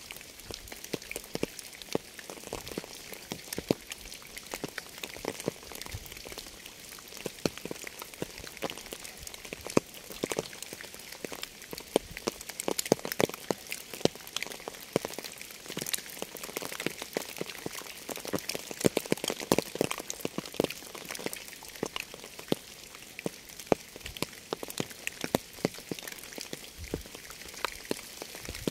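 Steady rain: an even hiss dotted with many sharp, close drop impacts ticking on a surface.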